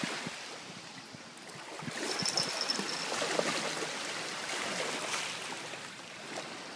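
Shallow sea water sloshing and lapping, stirred by a small dog wading through it.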